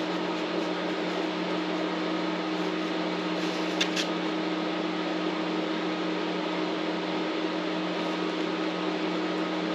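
A steady machine hum with an even hiss, like a running fan or appliance motor, and two small clicks about four seconds in.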